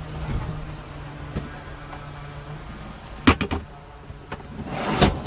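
Handling noises inside a Scania R truck cab over a steady low hum: a quick cluster of sharp knocks about three seconds in, then a rustling clatter near the end.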